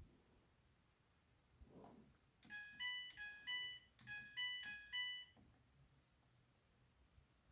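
Front-loading washing machine's electronic beeper playing a short melody of clean stepped beeps, two phrases of about four notes each, starting about two and a half seconds in. A single click comes just before, at the start.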